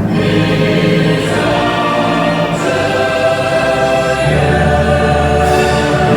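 A choir singing over orchestral music from the show's soundtrack, loud and steady, with no firework bangs standing out.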